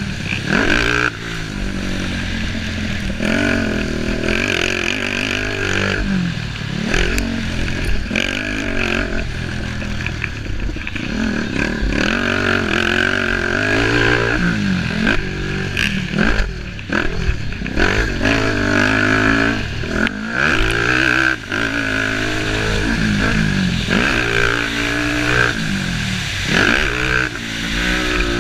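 Racing engines running hard, their pitch rising and dropping again and again every couple of seconds as they rev up, shift or pass.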